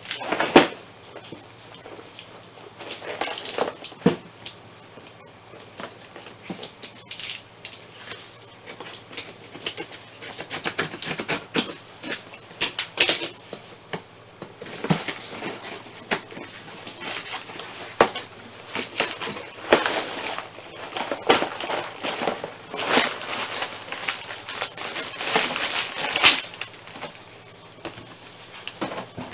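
Handling noise from opening a cardboard Lego box: irregular rustles, scrapes and sharp clicks, followed by plastic bags of Lego pieces rustling and crinkling as they come out of the box.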